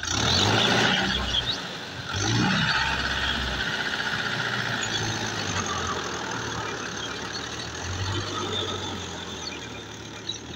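Mahindra Yuvo tractor's diesel engine running under load while its rotary tiller churns wet paddy-field soil, a steady engine drone under a broad churning noise. It is loudest in the first few seconds and fades gradually as the tractor moves away.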